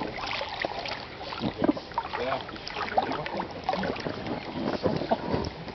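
Swimming-pool water sloshing and lapping close by, with small splashes as people move in the water.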